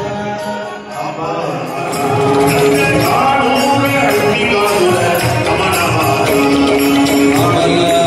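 Devotional bhajan (namasankeerthanam): a group singing a chant, with percussion keeping a steady beat. The sound gets louder and fuller about two seconds in.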